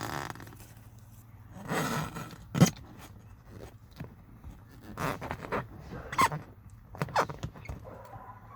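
Hand-pumped 10-ton hydraulic lug crimper being worked: a series of separate scrapes and knocks, with a sharp click about two and a half seconds in.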